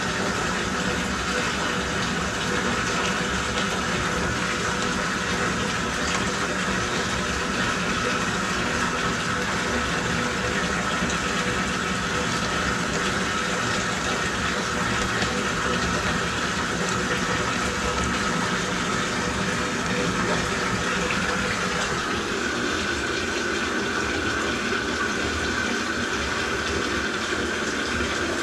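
Motorized drain-cleaning machine running steadily, its cable spinning in a drain line clogged with lint and grease. Its steady whine steps up slightly in pitch a little after twenty seconds.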